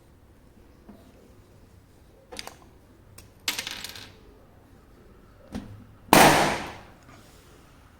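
A few short knocks and a clattering rattle, then one loud bang about six seconds in that dies away over most of a second.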